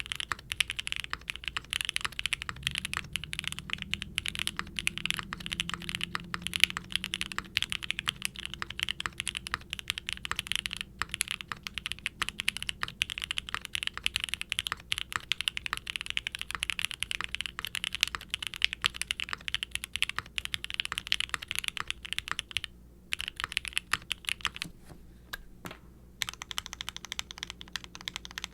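Fast continuous typing on a Qwertykeys QK60 R3 mechanical keyboard with lightly re-lubed Gateron Oil King linear switches, a carbon fiber plate and double-shot ABS keycaps. The keystrokes pause briefly near the end, then come more sparsely.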